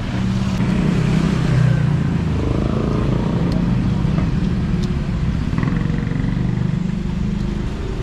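A vehicle engine running steadily, a continuous low drone, with a few faint clicks over it.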